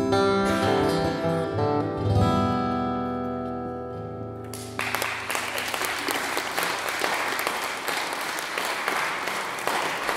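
Acoustic guitar playing the closing notes of a song, ending on a strummed chord about two seconds in that rings and fades away; about five seconds in, audience applause breaks out and keeps going.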